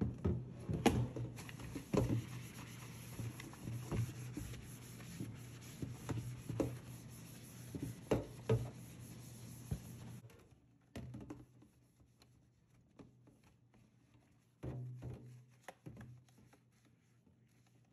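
A plastic dish-rack drainboard being handled and scrubbed with a sponge in a stainless steel sink: scattered knocks and thunks with rubbing and scrubbing. A steady hiss runs underneath and stops about ten seconds in.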